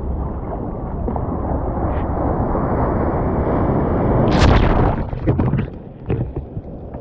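Rushing water from a sea kayak in the surf, building to one loud splash about four and a half seconds in as water breaks over the deck, then sloshing and dripping on the deck.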